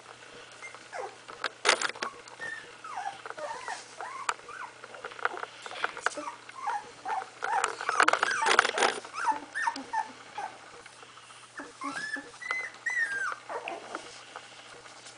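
A litter of 16-day-old puppies squeaking and whimpering: many short, thin calls that bend up and down in pitch, overlapping most thickly about halfway through, with scattered clicks and rustles.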